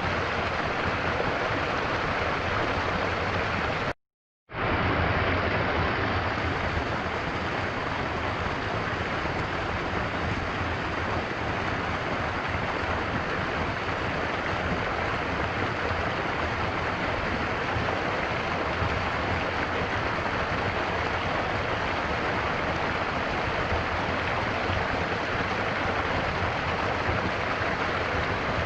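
Stream water flowing in a steady rush. The sound cuts out completely for about half a second around four seconds in, then resumes unchanged.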